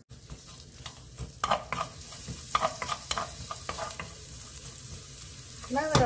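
Sliced green onion and garlic sizzling in sesame oil in a nonstick frying pan, stirred with a wooden spatula that scrapes across the pan in several short strokes.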